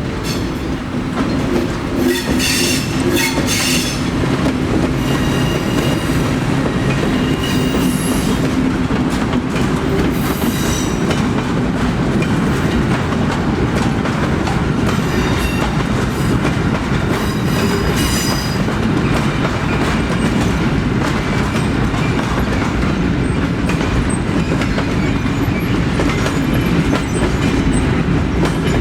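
Freight train hauled by a T44 diesel locomotive, rolling by with a steady rumble and clacking of wheels over the rails. The wheels squeal sharply several times.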